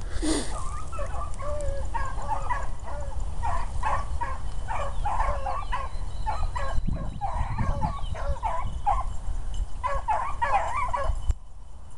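A pack of rabbit-hunting hounds baying on a scent trail: many quick, overlapping cries that run on and then stop abruptly about eleven seconds in.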